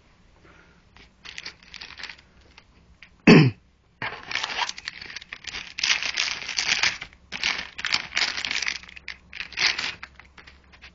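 Cardboard box and packaging rustling and crinkling in irregular bursts as hands rummage through them, with one short loud sweeping noise about three seconds in.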